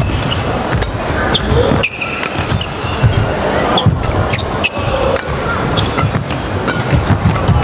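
Badminton rally: rackets striking the shuttlecock about once a second, with sharp shoe squeaks on the court mat as the players lunge, over the steady noise of a large arena crowd cheering and shouting.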